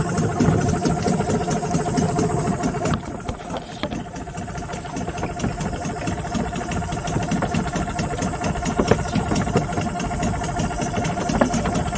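Boat's outboard motor running steadily under way, dipping briefly in level about three seconds in.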